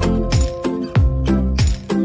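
Background music with a steady beat: deep drum hits that drop in pitch, sharp shaker-like strokes, and held melody notes.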